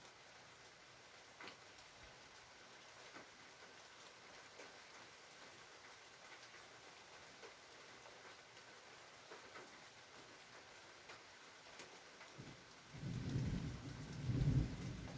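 Light steady rain with scattered drop ticks, then about thirteen seconds in a roll of thunder rumbles in and swells to its loudest near the end.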